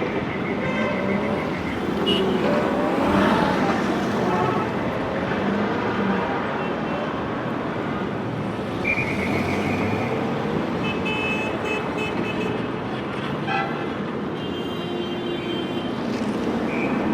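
Busy city street traffic noise, with a few short high-pitched toots: one near the start, one about halfway through and one near the end.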